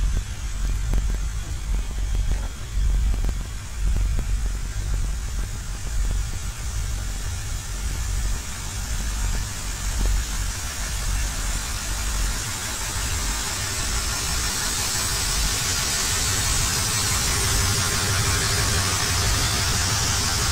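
GE C30-EMP diesel-electric locomotives' 12-cylinder engines idling with a deep, steady rumble. About two-thirds of the way through, the rumble fades back and a steady hiss grows louder.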